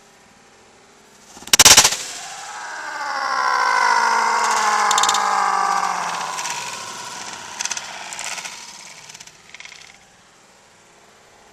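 A sledgehammer strikes a plastic coffee maker with one loud crash about a second and a half in. It is followed by a ringing sound of several tones sliding slowly down in pitch over about four seconds, then a few light clatters.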